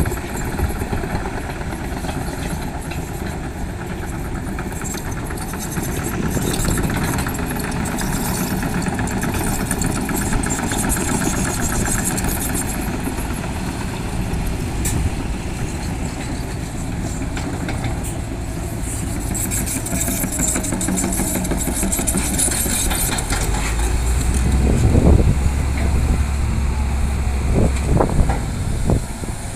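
Heavy diesel engines of an excavator and a dump truck running steadily; a deep, louder engine drone comes in near the end, peaking about three quarters of the way through.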